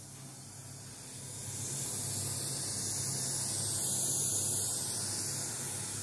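Steady white-noise hiss from an Invotone DSX8A class-D active speaker turned up with a keyboard connected to its input by a balanced TRS cable. It grows louder from about a second in and eases slightly near the end. The hiss appears only with a device plugged into the input, and the owner says it is not hum and not generated inside the cabinet itself.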